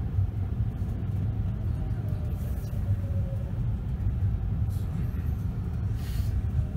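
Electric passenger train running, heard from inside the carriage: a steady low rumble of wheels on the track with a faint motor whine, and a short hiss about six seconds in.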